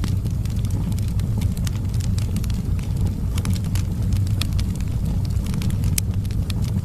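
Wood fire burning in a fireplace: a steady low rumble of flames with many sharp crackles and pops from the burning logs.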